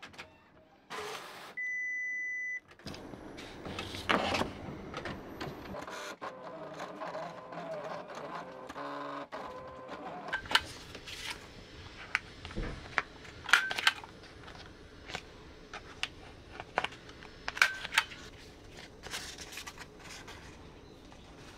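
A short steady electronic beep, then an electronic cutting machine whirring and clicking as its carriage and rollers move a sticker sheet through. Paper sheets are handled near the end.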